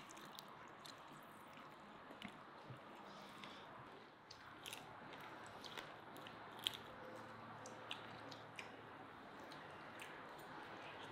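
Faint sounds of eating fried grass carp by hand: the crisp fried crust tearing and being chewed, heard as scattered small crunches and clicks.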